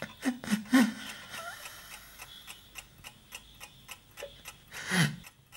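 Clock ticking fast and evenly, about four ticks a second, counting down toward midnight. A few louder knocks come near the start and one more near the end.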